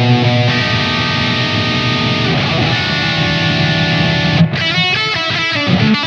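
Aguda Blackhole Custom headless electric guitar with humbuckers played through an overdriven lead tone: two long sustained notes held for a second or more each, then a fast run of picked notes near the end.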